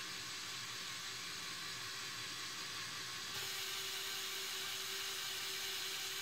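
Medium Lego Power Functions motor and its gear train whirring steadily as they spin the main rotor of a Lego Technic helicopter model. The whir gets a little louder about three and a half seconds in.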